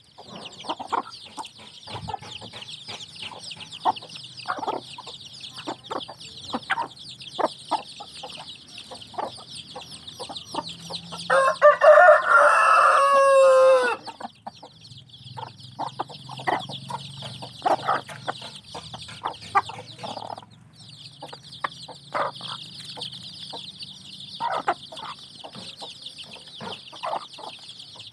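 A brood of kampung chicks peeping constantly at feeding time while the hens cluck now and then. Near the middle a rooster crows once, about two and a half seconds long, the loudest sound.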